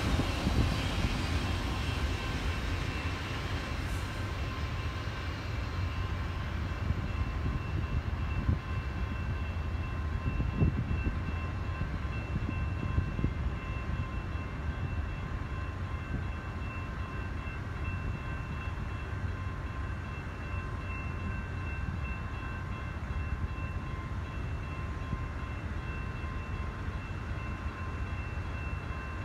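Freight train of autorack cars rumbling away down the track, its sound slowly fading over the first half, with a few faint steady high tones running through.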